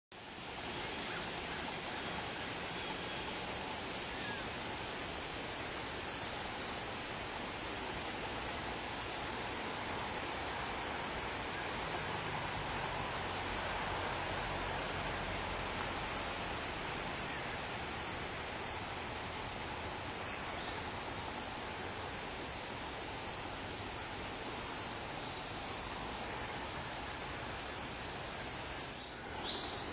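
Dense chorus of insects giving a steady, high-pitched shrill that does not let up, with a fainter chirp repeating about once a second in the second half.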